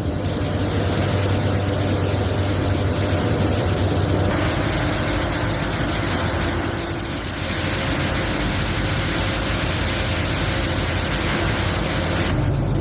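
Steady factory machinery noise: a low hum under an even hiss. The mix shifts about four seconds in and again near the end.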